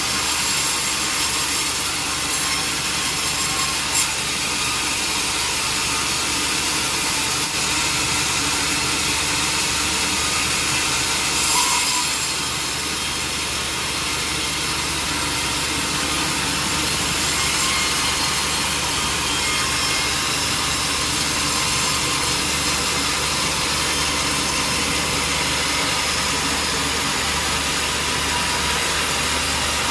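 Sawmill saw cutting steadily through a large durian wood stump: continuous sawing noise over a steady low motor hum. There is a sharp click about four seconds in and a brief louder surge near the middle.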